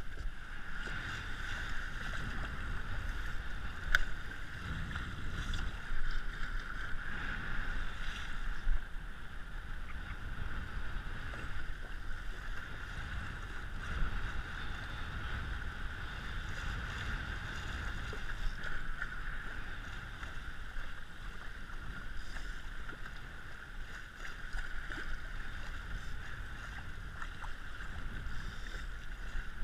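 Water rushing steadily along the hull of an RS100 sailing dinghy under way, with wind buffeting the camera microphone. A single sharp knock about four seconds in.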